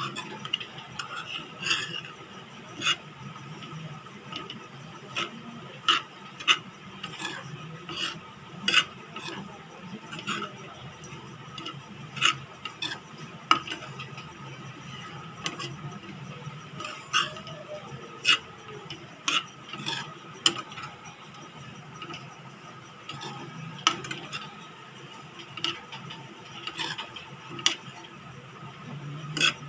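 Steel spoon scraping and clinking against a steel pan while stirring grated coconut as it roasts in a little ghee, with irregular clinks roughly once a second.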